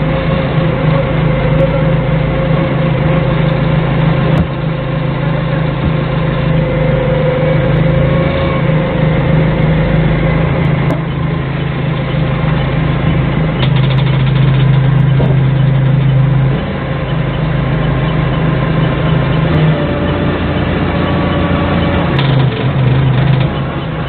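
Doosan 4.5-ton forklift's engine running, heard from the operator's seat, its speed rising and falling as the truck works; it runs louder for a few seconds around the middle, then drops back.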